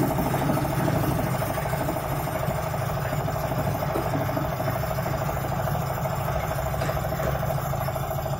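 Engine of a makeshift hoist running steadily at an even speed.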